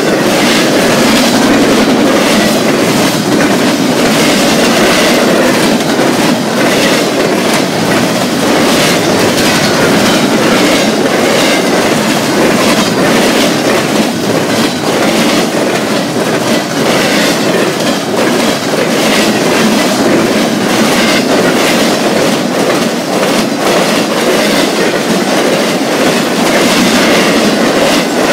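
Freight train cars rolling past at speed, with a steady rumble and repeated clacks as the wheels run over rail joints.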